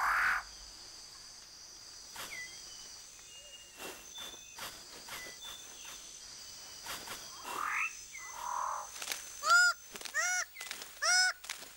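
Tropical rainforest ambience: a steady high insect drone with scattered short animal calls and sweeps, then from about nine seconds in a run of loud, arched, croaking calls repeating about twice a second.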